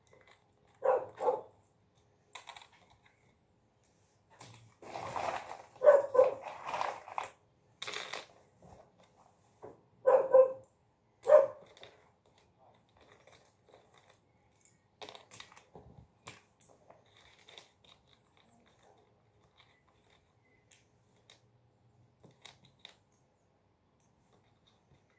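A dog barking in short bursts several times in the first half. After that, only faint clicks of jigsaw pieces being handled.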